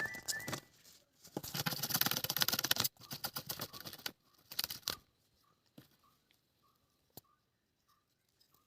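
A knife scraping the thick scales off a kuruva (climbing perch): two dense runs of rapid scratchy strokes, ending about three seconds in, followed by a few scattered scrapes and clicks.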